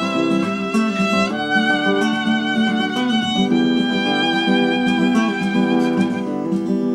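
Live acoustic music in an instrumental break between sung lines: a melody of long held, wavering notes, which sounds like a violin, over guitar accompaniment.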